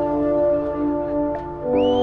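Soft ambient background music with long held notes.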